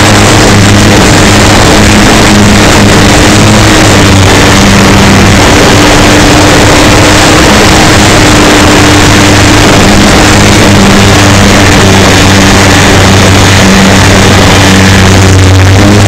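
Electric motor and propeller of an RC Super Cub model plane, picked up by a camera on board, humming steadily with small shifts in pitch under heavy wind rush on the microphone. Loud and distorted throughout.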